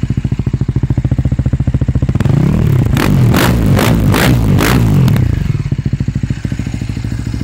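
KTM 450 SX-F single-cylinder four-stroke engine through an Akrapovic exhaust, idling with a steady lumpy beat. About two seconds in, the throttle is blipped several times in quick succession, each rev rising and dropping sharply. It then settles back to idle.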